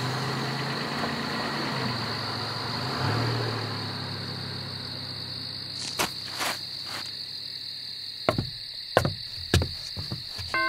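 Crickets chirp steadily while a car's engine pulls away and fades out over the first few seconds. From about six seconds in come a string of single footsteps, roughly seven of them, spaced about half a second apart.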